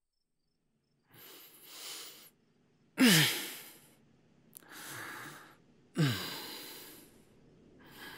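A man breathing heavily: a noisy in-breath, then a loud voiced sigh that falls in pitch and fades. This happens twice, about three seconds apart, and another in-breath begins near the end.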